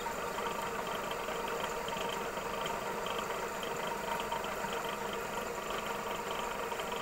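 Belt-driven warping machine running steadily, its beam spinning as it winds warp yarn for a doormat loom: an even, continuous mechanical whirr with a fine fast clatter.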